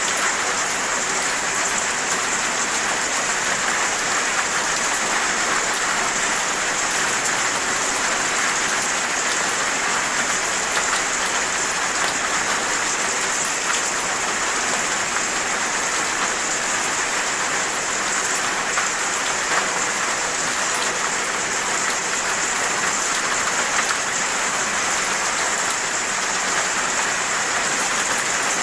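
Steady rain falling: an even hiss with many separate drops striking a surface.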